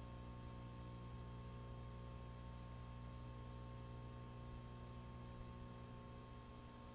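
Faint steady electrical hum with a light hiss; no other sound.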